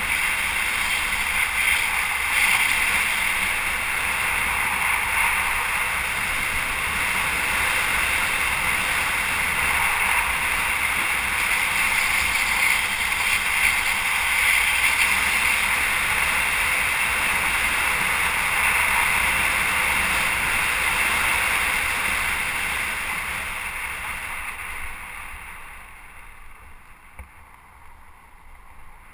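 Steady, loud rushing noise that dies away a few seconds before the end.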